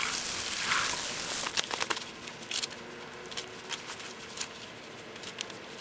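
Water spraying and splashing onto a person's clothes and body, a steady hiss that dies down about two seconds in. After it come scattered wet pats and small splashes as he is scrubbed by hand.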